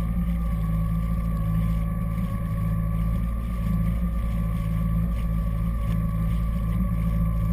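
Jet ski engine running steadily at slow speed, a constant low drone with a faint steady whine above it, heard close up from a camera on the craft's bow.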